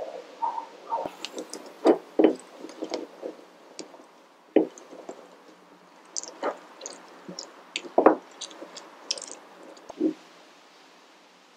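Close-up kitchen handling sounds: a spoon clicking and knocking against a plastic blender jar as honey is measured in, then half a lemon squeezed and twisted on a glass citrus juicer with wet squishing ticks, and a knock about ten seconds in as the glass juicer is set down on the wooden table.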